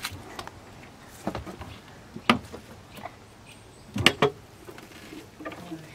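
A few sharp knocks and clatters from the wooden lid of a garden box being handled. The loudest comes about two seconds in, followed by a quick cluster of two or three around four seconds in.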